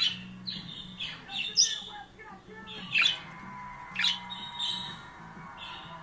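Budgerigar squawking and chattering: four sharp, loud squawks about a second or so apart, with warbling chirps between them.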